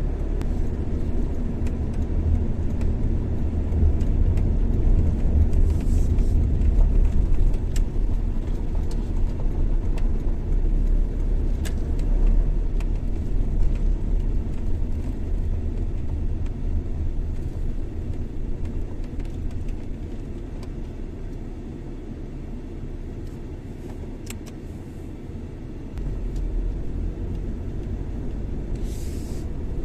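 Car driving along a highway: a steady low rumble of road and engine noise, which eases for a few seconds and then comes back up abruptly near the end.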